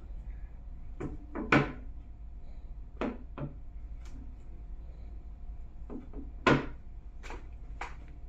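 Smartphones being handled: about a dozen scattered taps, clicks and knocks, the loudest a little over a second in and about six and a half seconds in, over a steady low hum.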